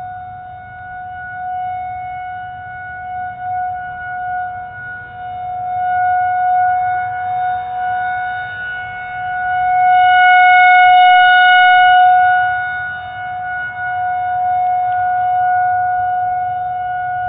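Outdoor tornado warning siren sounding one long steady tone. It swells louder and fainter as its rotating horn turns toward and away, and is loudest around ten to twelve seconds in.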